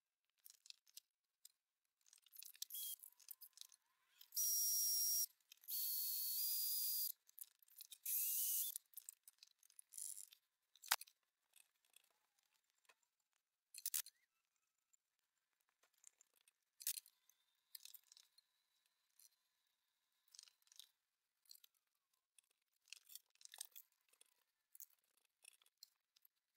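Faint clicks and clinks of small metal parts and hand tools while a glass-scale DRO and its mounting plate are screwed onto a milling machine's knee. A little over four seconds in come three short bursts of high hiss, about a second or so each.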